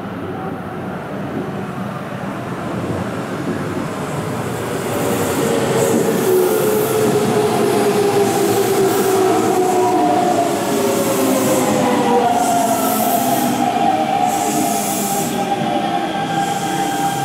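Hanshin 5500 series electric train braking as it runs in: the motor whine slides down in pitch, over wheel-on-rail noise with repeated brief high squeals. In the last few seconds a steadier whine is heard.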